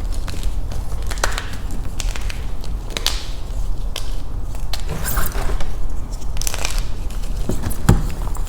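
Block of Beasty gym chalk crushed in the hands: a few separate sharp snaps, then denser crunchy crumbling for about a second around the middle, and another snap near the end.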